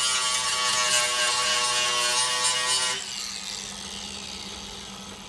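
Angle grinder with a flap disc grinding down the welds on a steel sheet-metal patch panel: a steady whine with a grinding hiss. About three seconds in it is switched off and winds down with a falling whine.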